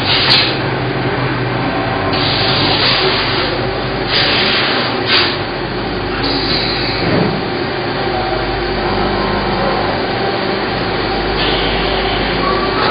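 Workshop machinery running steadily with a low hum, typical of a CNC lathe shop, cut by bursts of hissing about two, four and five seconds in and again near the end.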